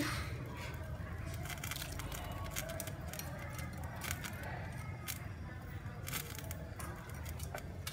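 Pot of soup simmering on a stove: a steady low rumble with scattered small pops and clicks, with faint voices or music in the background.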